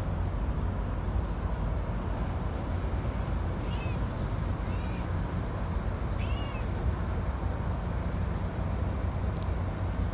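Cat meowing three times in short, high, arching calls, over a steady low rumble.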